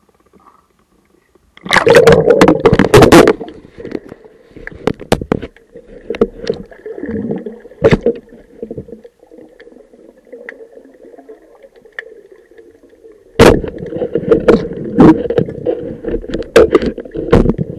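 Loud splashing and bubbling about two seconds in as a diver goes under the sea surface. Then comes muffled underwater sound with a steady hum and scattered knocks, and a second stretch of loud bubbling starts near the end.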